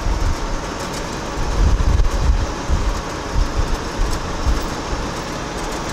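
A 1977 Ford F-250 pickup driving at road speed, heard from inside the cab: a steady mix of engine, tyre and wind noise with a heavy low rumble that swells in gusts about two seconds in.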